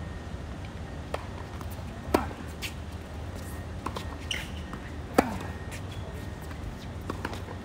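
Tennis ball struck by rackets during a rally: two sharp pocks about three seconds apart, with fainter knocks of ball bounces and footwork between them, over a steady low outdoor rumble.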